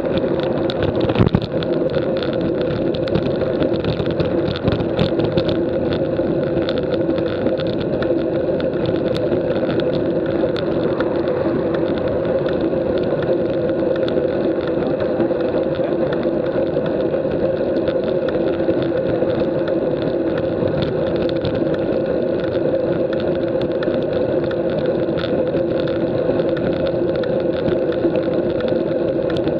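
Steady drone of wind and road noise picked up by a bicycle-mounted Garmin VIRB action camera while riding on a road, with a few knocks about a second in.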